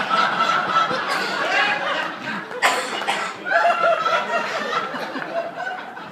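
A roomful of people laughing and chuckling together, with a few voices mixed in, after a joke. One sharp click about two and a half seconds in.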